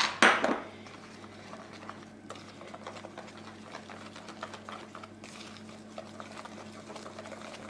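Wire whisk beating flour into an egg-and-milk batter in a plastic bowl: a steady, fast, scratchy ticking. A couple of loud knocks come right at the start.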